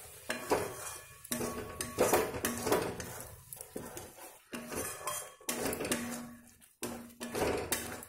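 Metal spatula scraping and clinking against a metal kadai in repeated irregular strokes, stirring thick masala paste as it is roasted.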